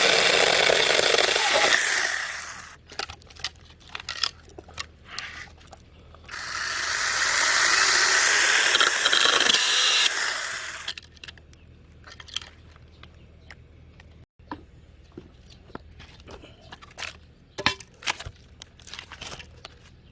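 Mini cordless battery chainsaw cutting through a log. It runs for about two seconds and stops, runs again for about four seconds and winds down, and then there are only scattered clicks and knocks.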